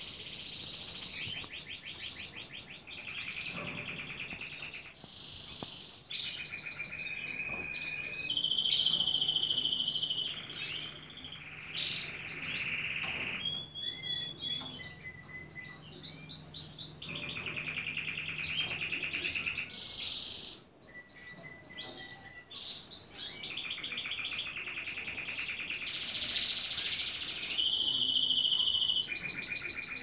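Red-factor canary singing a long, unbroken song of fast trills and rolling phrases, one kind of phrase giving way to the next every second or two.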